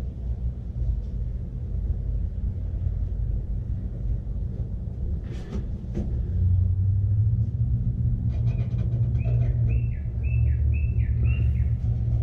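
Low steady rumble that grows louder about halfway through, with a bird chirping over it in quick repeated calls, about two a second, over the last few seconds. A couple of faint clicks come midway.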